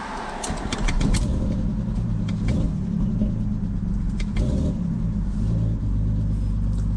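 Turbocharged BMW E46 engine being started: it turns over and catches about a second in, then settles into a steady idle with a few sharp clicks over it.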